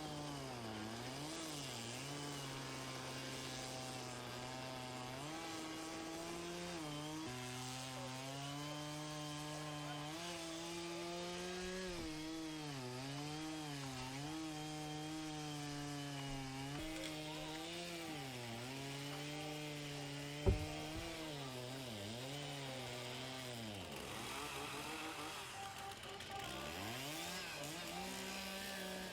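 Chainsaws running and revving up and down as they cut into wood, the engine pitch dipping under load and climbing again every second or two. One sharp knock about two-thirds of the way through.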